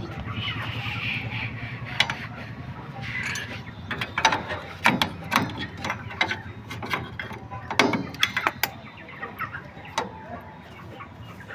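Irregular metallic clicks and knocks of tools and loose metal parts as an e-rickshaw motor is taken apart, its brushes and end plate being removed.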